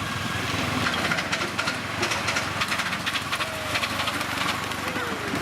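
5-inch gauge live-steam 2-8-4 pannier tank locomotive working under steam: a steady hiss of steam with a quick, even run of exhaust beats through the middle.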